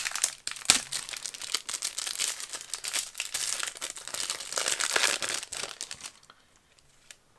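Plastic wrapper of a trading-card pack being torn open and crinkled in the hands, a dense crackling that stops about six seconds in.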